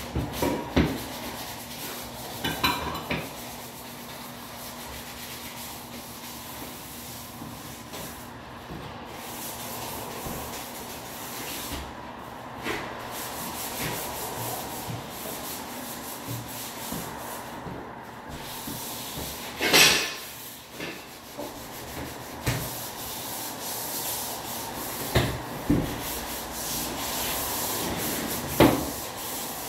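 Steady scraping and rubbing, broken by a few sharp knocks and clacks, the loudest about twenty seconds in.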